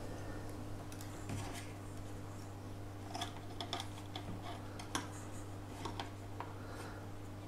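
Light plastic clicks and taps from hands fitting a gimbal damping plate with rubber mounts and zip ties onto a DJI Phantom 2 quadcopter's plastic body. They come scattered and irregular, mostly in the second half, over a faint steady low hum.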